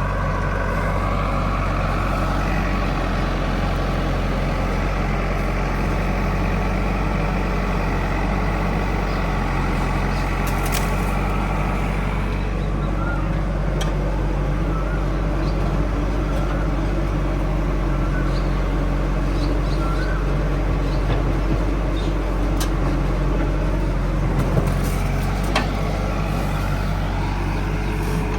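Heavy diesel engine of farm or earthmoving machinery running steadily at a constant speed, with a few short clicks and knocks over it in the second half.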